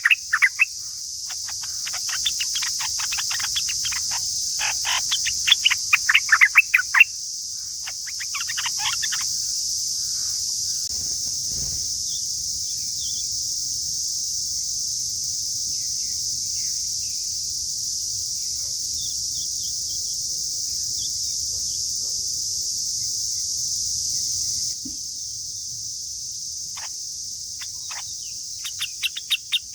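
Yellow-vented bulbuls calling in quick runs of sharp, falling chirps, thickly in the first nine seconds and again briefly near the end. Under them runs a steady high-pitched insect chorus that drops a little in level about 25 seconds in.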